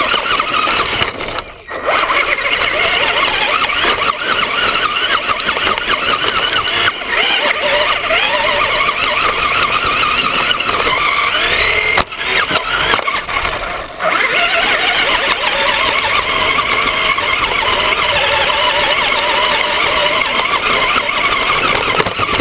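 Battery-powered Traxxas RC car running hard over dirt, heard up close from a camera mounted on the car: the electric motor and gears whine, rising and falling with the throttle, over the rattle of the tyres and chassis. The sound briefly drops away about a second and a half in and again around twelve to fourteen seconds in.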